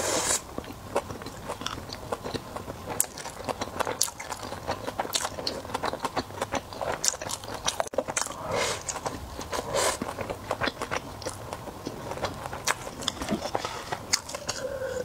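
A person biting and chewing egg-topped sushi rolls up close, with many short sharp mouth clicks throughout.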